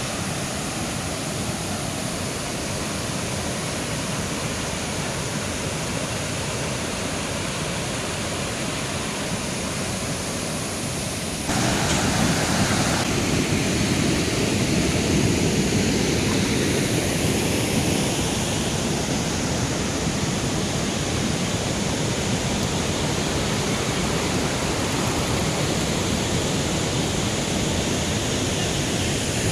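Mountain river flowing, a steady rushing noise that steps up in loudness about eleven seconds in.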